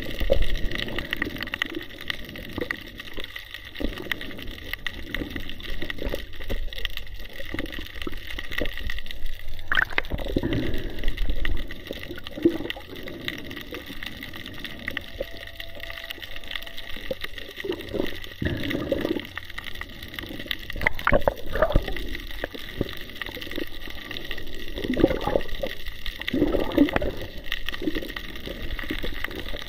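Water gurgling and sloshing as heard underwater, in irregular bursts over a steady high hum.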